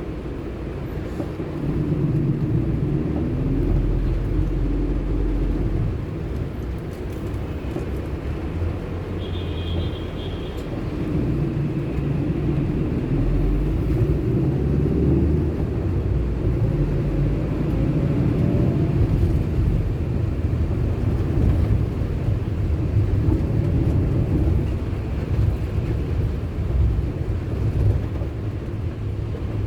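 Car driving, with engine and road rumble as picked up by a car-mounted camera; the engine note rises and falls. A short high tone sounds about ten seconds in.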